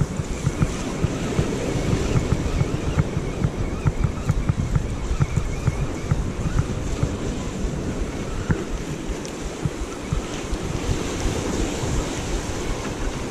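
Ocean surf washing against the shore, with wind buffeting the microphone in rapid low gusts throughout.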